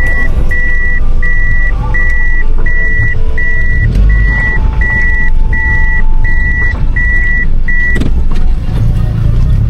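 A car's reversing warning beeper sounding inside the cabin: an even high beep repeating a little under twice a second over the low rumble of the car. The beeping stops about eight seconds in, when the car comes out of reverse.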